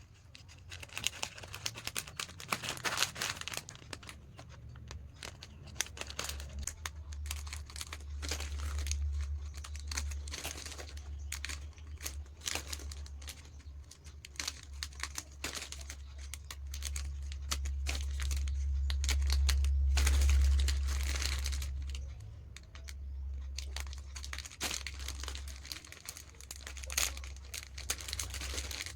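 Plastic snack packets crinkling and tearing as they are handled, in a dense run of irregular crackles. A low hum rises underneath after a few seconds and is strongest about two-thirds of the way through.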